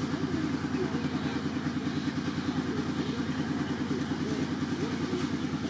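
A small engine running steadily at idle, a rapid even throb.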